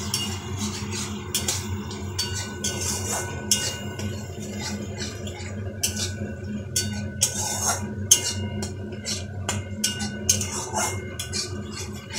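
A spatula scraping and knocking against a kadai, irregularly, as a thick spice paste is stir-fried (the masala being 'koshano', fried down). A steady low hum runs underneath.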